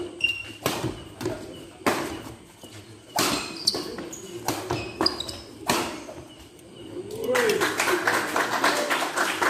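Badminton rally: about six sharp racket hits on the shuttlecock, roughly a second apart. From about seven seconds in, spectators' voices and clapping as the rally ends.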